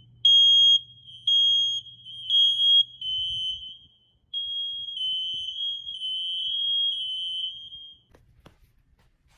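Smoke alarm's piezo horn sounding during a test: three loud, high-pitched half-second beeps about a second apart, then a quieter, nearly continuous tone for about four seconds. The tone stops, and a few faint clicks follow near the end.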